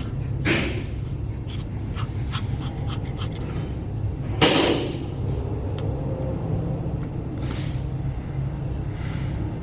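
A steady low shop hum, with small sharp clicks and ticks of small parts and tools being handled in the first few seconds and a few brief scraping or rustling sounds, the loudest about four and a half seconds in.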